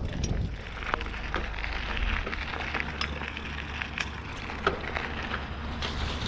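Mountain bike riding along a dirt trail: a steady rolling hiss from the tyres, scattered sharp clicks and crackles from the trail surface, and a low wind rumble on the microphone.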